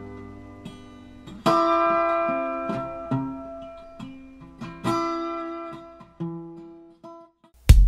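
Intro music: guitar chords strummed twice and left to ring and fade away, followed by a loud low thump right at the end.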